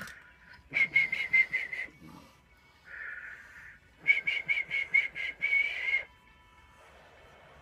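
A man whistling into a telephone handset: two quick runs of short pulsed whistles, about five a second, with a breathy blow between them.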